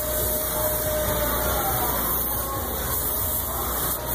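Steady rush of compressed air and powder from a powder coating spray gun in use.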